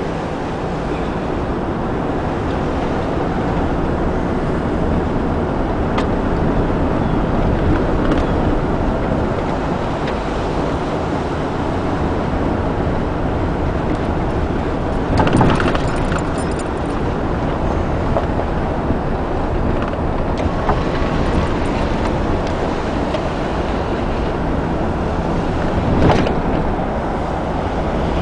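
Car driving on a snow-covered lane, heard from inside the cabin: a steady rumble of engine and tyres on the road, with two brief louder bumps, one about halfway through and one near the end.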